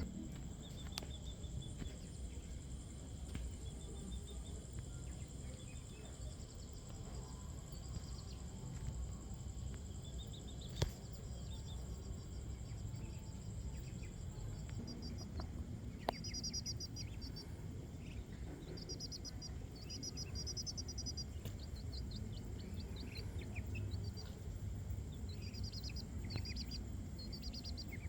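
Outdoor night ambience with a steady low rumble and a thin, steady high-pitched tone that stops about halfway through. Small birds chirp in repeated short trills through the second half, and there are two sharp clicks, about eleven and sixteen seconds in.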